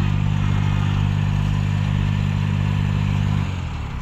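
An engine running steadily, then dropping in pitch and level about three and a half seconds in, as if throttled down or shutting off.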